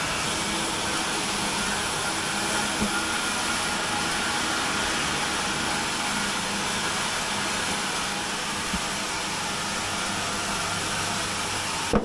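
Steady running noise of a horse-powered sawmill's machinery, its drive shafts, belts and carriage turning, with no saw cut heard.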